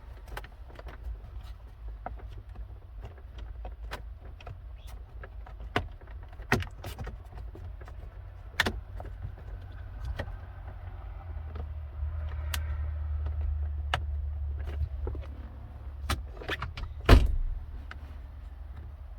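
Plastic interior trim pieces being handled and fitted back into place: scattered light clicks and knocks, with one louder knock near the end, over a steady low hum that grows louder for a few seconds past the middle.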